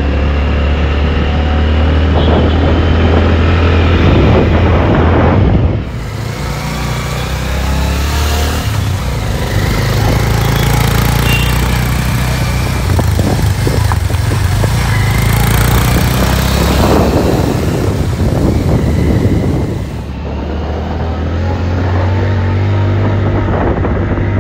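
Motorcycle engine running at riding speed, a steady low hum under road noise. The sound changes abruptly about six seconds in and again about twenty seconds in, at cuts between clips.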